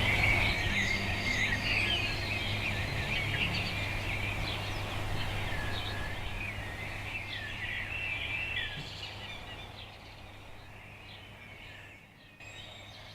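Many small birds chirping and twittering together over a low steady hum, the whole fading out gradually toward the end.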